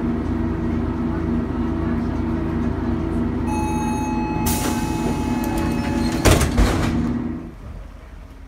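Diesel engine of a DR Class 172 railbus ('Ferkeltaxe') idling with a steady drone, heard inside at the passenger door. About three and a half seconds in a warning tone starts, followed by a hiss and the door shutting with two bangs about six seconds in; the drone cuts off near the end.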